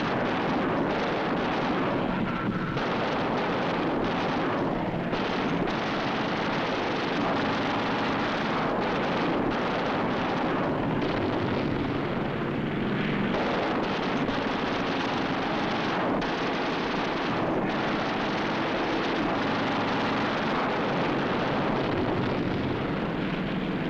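Propeller-driven fighter planes' piston engines, a steady, dense drone with no breaks, heard on an old, noisy film soundtrack.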